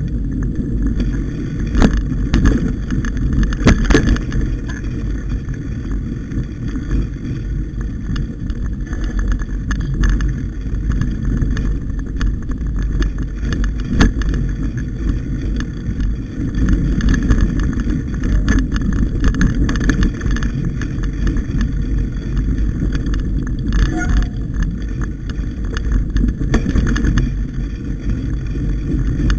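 Mountain bike riding over a dirt singletrack, heard from the moving bike: a steady low rumble of wind and tyres, with scattered clicks and knocks as it goes over bumps.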